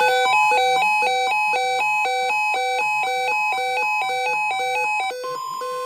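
Electronic alert tone: a rapid melody of alternating beeps at several pitches. It drops in level and changes to a slower two-note pattern about five seconds in.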